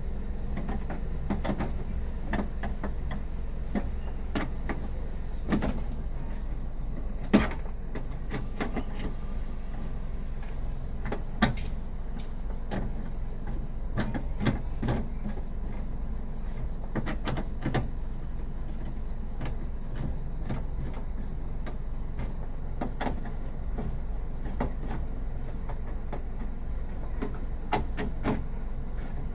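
Scattered clicks and knocks of parts and tools being handled on a car door during a power-window repair, over a steady low hum. The sharpest knocks come about 7 and 11 seconds in.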